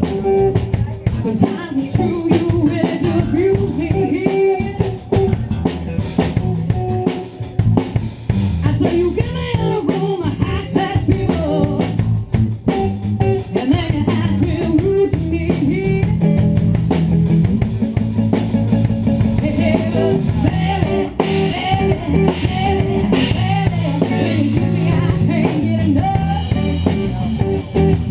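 Live rock band playing: a woman singing lead over electric guitar, electric bass and a drum kit.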